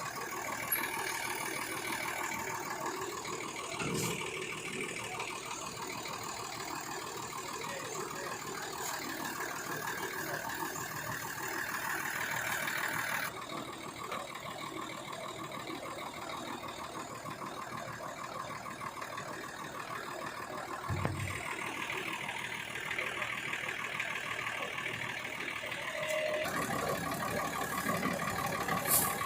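Truck-mounted rice threshing machine running steadily, its engine and threshing drum making a continuous mechanical drone. The sound changes abruptly twice along the way.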